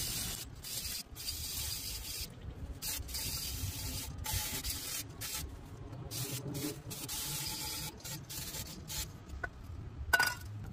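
Aerosol cleaner spraying through its straw in short hissing bursts with brief breaks between them, flushing out an engine crankcase.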